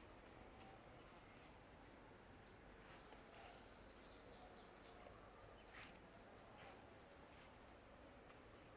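Faint bird song: a quick run of high, down-slurred notes about two and a half seconds in, and a second, shorter run of five or six notes near seven seconds.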